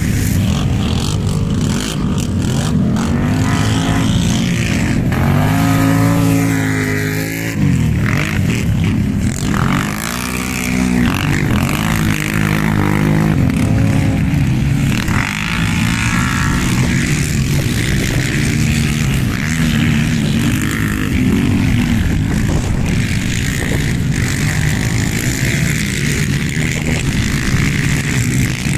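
Racing ATV (quad bike) engines under hard throttle, the pitch climbing and falling again and again as they rev up and ease off, with a sharp drop about seven seconds in.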